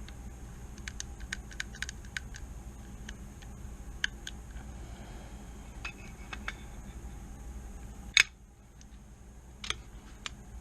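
Small metal parts of a Hi-Point C9 pistol clicking and tapping as they are handled and fitted, with one loud sharp click about eight seconds in.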